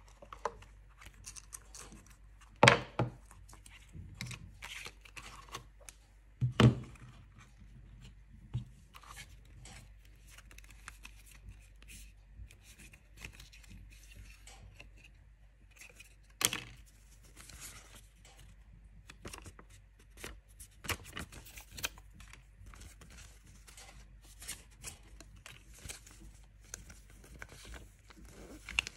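Cardboard packaging and paper inserts being handled: repeated rustling, scraping and small clicks of card and paperboard, with three sharp knocks, about three, seven and seventeen seconds in.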